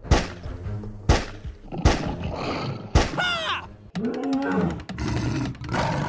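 Four sharp pistol-shot sound effects, about a second apart, followed after about three seconds by a short exclamation falling in pitch.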